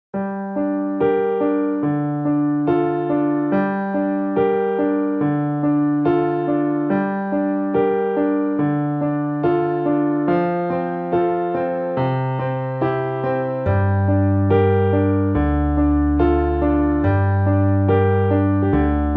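Background keyboard music, piano-like, playing a steady repeating pattern of notes, with deeper, louder bass notes coming in about two-thirds of the way through.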